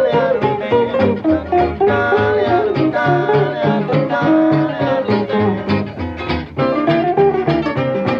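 Instrumental break of a swing string-band record: plucked acoustic guitars playing a busy lead line over a string bass keeping the beat.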